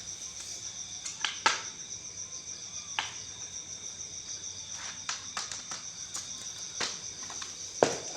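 Crickets chirping in a steady high trill, with scattered sharp clicks and taps, the loudest near the end.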